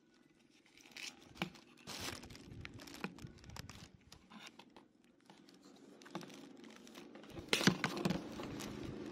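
A synthetic-leather ear pad being worked onto the plastic earcup of Sony MDR-XB950B1 headphones: irregular crinkling, scratching and small clicks, loudest about a second and a half before the end.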